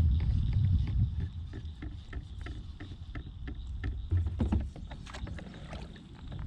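Close sounds of a kayak on the water: scattered light knocks and clicks over a low rumble that swells near the start and again about four seconds in.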